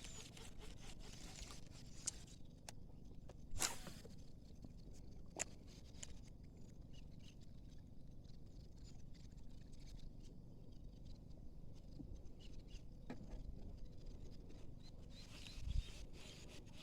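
Quiet outdoor ambience: a steady low rumble, a few sharp clicks spread through it and a low thud near the end, with faint high chirping at the start and end.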